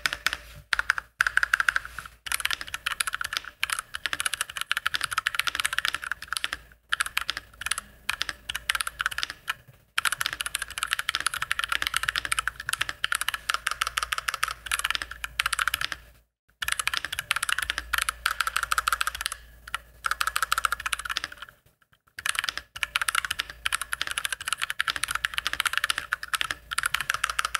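Fast typing on an iQUNIX F96 96% mechanical keyboard with Cherry MX Red switches: a dense, clean run of keystrokes with a few short pauses.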